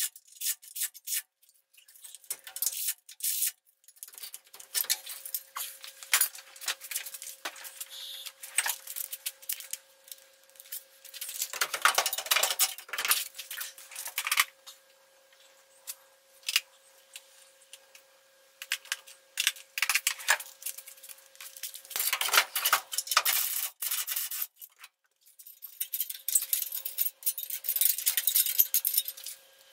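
Hand tools clicking and clinking on metal engine parts during work in a truck's engine bay, in several runs of rapid clicks a few seconds long.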